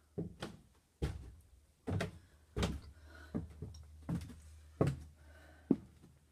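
A run of sharp knocks and thuds, roughly one every half to one second, with a low steady hum underneath.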